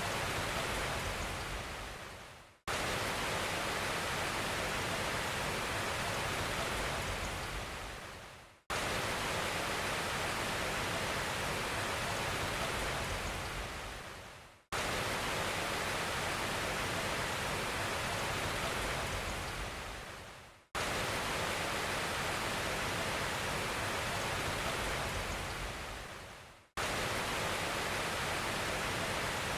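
Steady rushing hiss that fades away and cuts back in abruptly about every six seconds: a short noise recording played on a loop.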